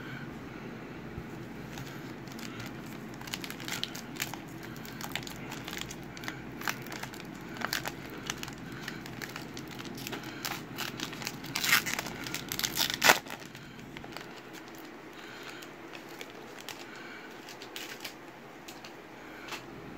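Plastic wrapper of a 2020 Legacy football card pack crinkling as it is worked open and torn, a run of sharp crackles that is loudest about twelve to thirteen seconds in, then dies down.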